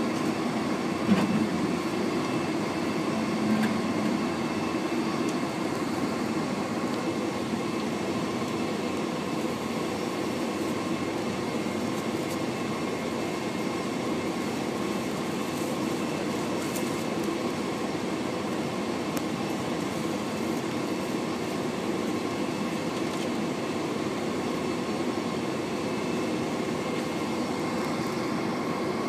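Steady cabin noise of a Boeing 747-400 taxiing at low power: the Rolls-Royce RB211-524H engines' even hum with faint whine tones over airflow rumble. Two small knocks come about one and three and a half seconds in.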